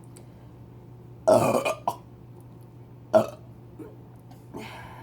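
A person belching loudly during a burping contest after chugging soda. There is a long burp about a second in, then a short sharp one about two seconds later.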